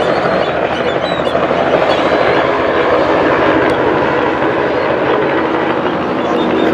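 Low-flying helicopter passing close by, its rotor beating loud and steady.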